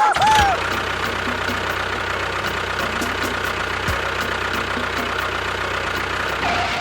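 A small engine running steadily at an even speed, with a faint regular ticking about three times a second.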